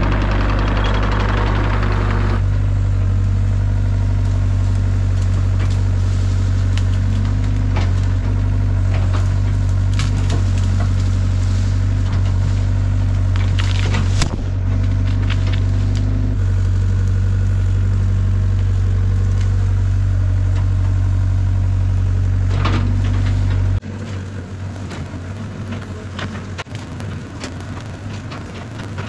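Cat 307SSR mini excavator's diesel engine running steadily, with a few sharp cracks and snaps over it. Near the end the engine sound stops abruptly, leaving a much quieter, rustling background.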